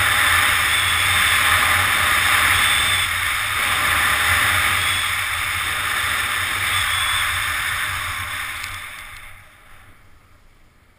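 Steady rushing hiss of a snowboard sliding over snow, with wind buffeting the camera microphone and a low rumble underneath. It fades away over the last few seconds as the board slows to a stop.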